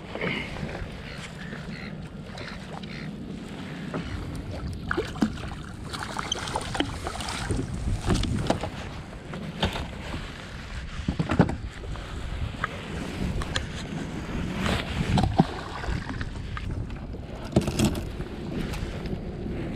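Fishing gear being handled aboard a plastic kayak: scattered knocks, clicks and rustles against the hull and deck, over a low rumble of wind on the microphone.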